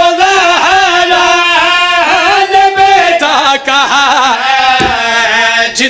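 A man chanting devotional verse in a long, wavering melodic line with drawn-out notes.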